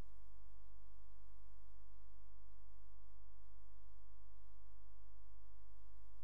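Steady electrical hum: a strong low drone with a buzzy stack of many even overtones, unchanging throughout.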